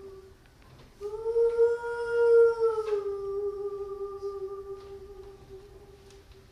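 A woman's solo voice singing one long wordless held note in an Andean ceremonial song. The note starts about a second in after a short breath, swells and rises slightly, then settles a little lower and slowly fades away.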